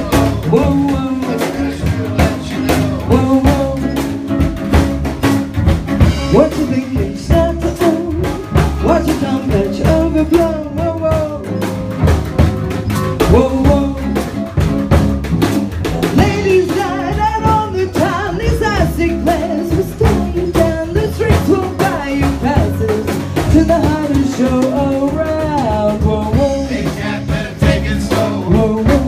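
Small swing band playing a bluesy swing tune without horns: drum kit, upright bass and a woman singing into a microphone.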